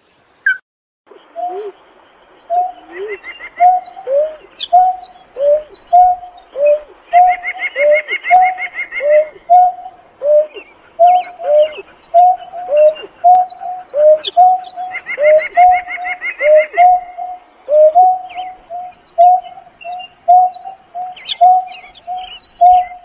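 Greater painted-snipe calling its flock: a long, steady series of low hooting notes, about two a second, many followed by a short falling note, starting about a second in. A rapid high trill from another bird comes and goes several times.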